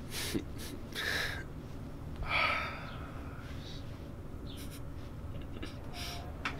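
Small sounds of a person lying in bed: three short, soft, hissy rustles about a second apart, then a few faint ticks, over a low steady room hum.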